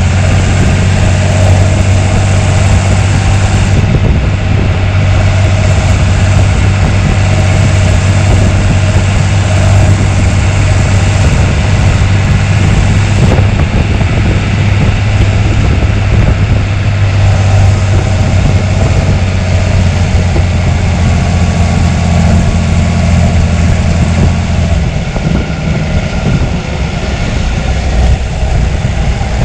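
John Deere 3350's six-cylinder 6.6-litre diesel engine running steadily under way, with a deep, even drone; its note changes near the end.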